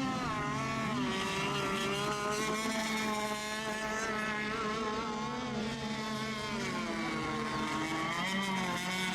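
Several radio-controlled racing boat engines running at once, each whining at its own pitch that rises and falls as the throttles are worked; one dips in pitch about seven seconds in and climbs back up.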